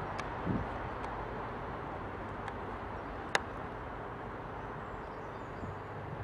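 Class 158 diesel multiple unit running slowly on the approach, a steady low rumble, with a single sharp click about three and a half seconds in.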